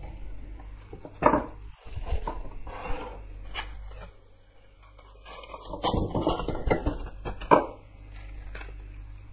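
Kitchen handling sounds: plastic cling film rustling as it is pulled out and laid on the countertop, with a metal spoon knocking against a stainless steel mixing bowl. A few sharp clinks and knocks, the loudest about three-quarters of the way through.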